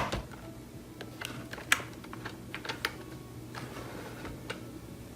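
Irregular light clicks and taps as the telescopic whip antenna of a Tecsun GR-88 portable radio is pulled out and the radio is handled.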